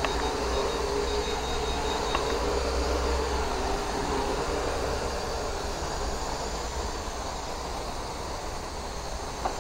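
Small racing quadcopter's motors and propellers buzzing steadily as it hovers and manoeuvres, the pitch wavering slightly, with a low rumble underneath.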